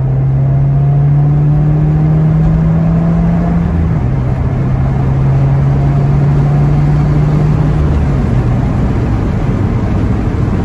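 Car engine pulling hard under acceleration, heard inside the cabin over steady road noise. Its low drone climbs slowly and drops in pitch at the upshifts about four and eight seconds in.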